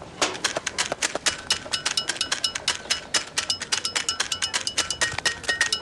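A fast, even rhythm of sharp clinking taps, about eight to ten a second, many with short ringing metallic notes, like quick percussion.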